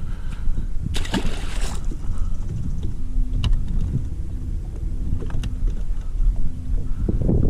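Wind rumbling on the microphone in open air, with a short hiss about a second in and a faint steady hum through the middle, over a few light clicks.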